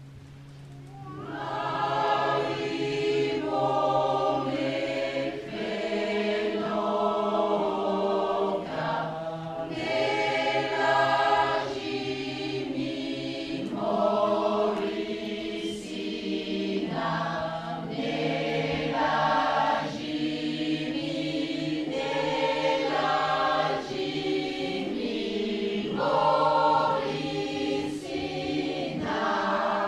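Choir singing in sustained chords, the voices swelling in about a second in over a low note held for the first few seconds.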